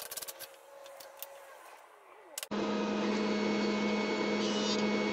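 A few faint handling clicks, then, after a cut about halfway through, a jointer's motor and cutterhead running steadily with an even hum and no wood being fed.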